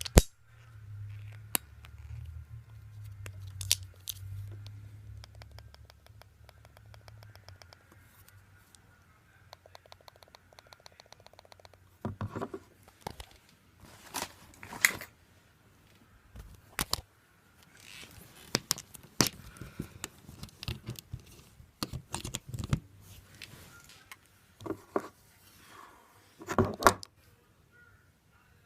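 Handling noises of a Pico Dual vape mod that will not turn on: scattered clicks, scrapes and rattles, with one sharp click right at the start and a run of louder clicks in the second half. A low hum underneath dies away about seven seconds in.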